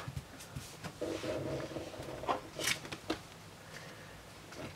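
Faint handling noises: a few soft taps and rustles of trading cards and packaging being moved about on a table.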